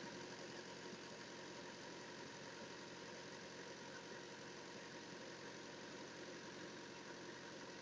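Diesel truck engine idling steadily and faintly, running the refrigeration unit's belt-driven compressor.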